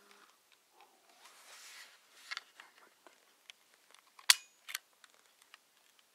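Kodak Ektralite 10 plastic pocket camera being handled, with small clicks and a brief rustle. A sharp click of the shutter release comes about four seconds in, and a second click follows half a second later.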